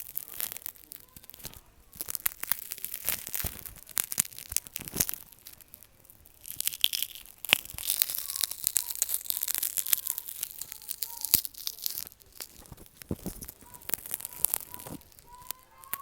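A broken glass screen protector being crushed, cracking and crunching in many sharp snaps, densest in the middle stretch.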